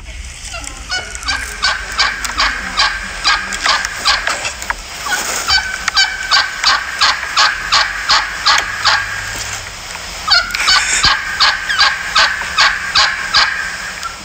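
Wild turkeys calling: a rapid run of repeated yelps, about three a second, in two long series with a short break near the middle.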